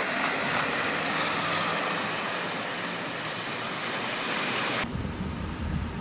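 Small sidewalk-clearing tractor with a spinning front attachment churning through snow: a loud, even hiss that cuts off abruptly near the end, giving way to a low street rumble.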